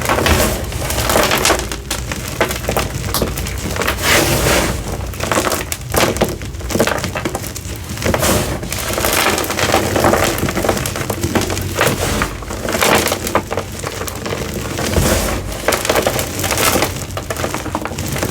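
Hard, flaky gym chalk reformed with citric acid and over-dried being crushed, giving a dense, continuous crisp crackling and snapping.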